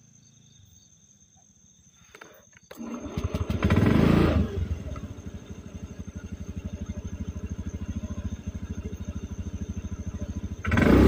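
Automatic scooter's single-cylinder engine starting after a couple of clicks about three seconds in and revving briefly, then idling with a steady rapid putter. It revs up again near the end.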